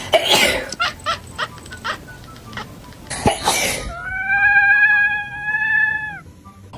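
Two short sneeze-like bursts about three seconds apart, with a few light clicks between them, then a cat gives one long meow of about two seconds that holds a steady pitch.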